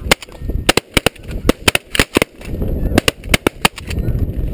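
A rapid volley of shotgun fire from several hunters, well over a dozen sharp shots close together, with snow geese honking and wind rumbling on the microphone.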